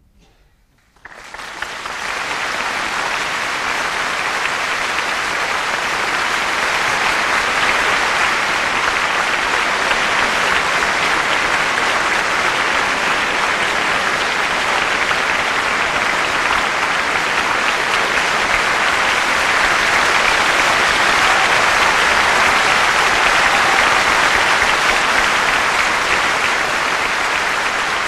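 Audience applause breaking out about a second in, building over the first few seconds into dense, steady clapping.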